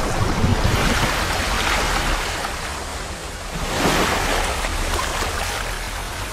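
Rushing, splashing water sound effect, swelling just after the start and again about four seconds in, over a low steady hum.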